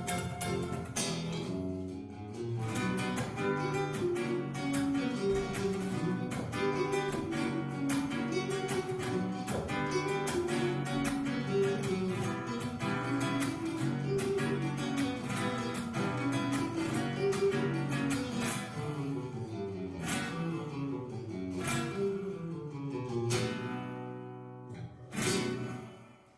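Solo plucked string instrument playing a fast instrumental run of picked notes. Near the end come a few separate struck chords before the piece dies away.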